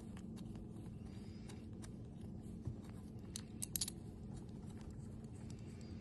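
Faint small clicks and scraping as screws are turned out of a connector's clamp, with a short cluster of sharper clicks about three and a half seconds in.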